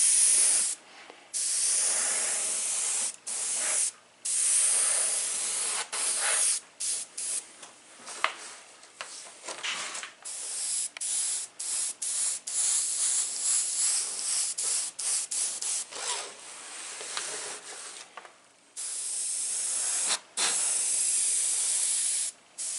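Airbrush hissing as it sprays paint, the trigger pressed and released over and over in short spurts, with a couple of longer passes near the end. It is laying a light haze of blue over white lightning-bolt work.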